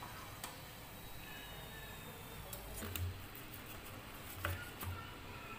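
A few soft taps and clicks of a wire skimmer against the pan and plate as fried samosas are lifted out of hot oil and set down, over a faint steady hiss.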